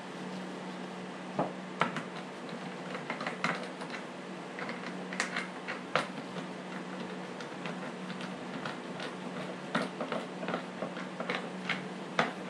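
Irregular light clicks and taps as the side cover and its nut are fitted back onto a Stihl MS 250 chainsaw by hand, over a steady low hum.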